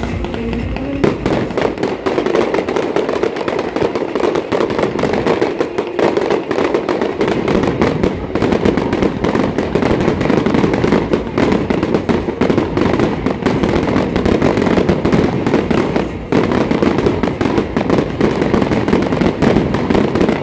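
Professional Ruggieri fireworks display in a dense barrage: shells bursting in rapid, continuous bangs and crackles that pile into one another, starting about a second in.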